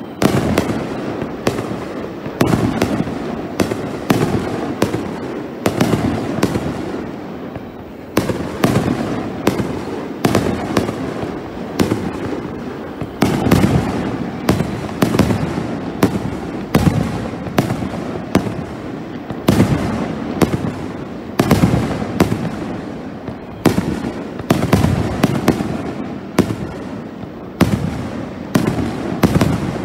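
Aerial firework shells bursting in a steady barrage close to the launch site: sharp bangs, often several a second, with the loudest reports every second or two.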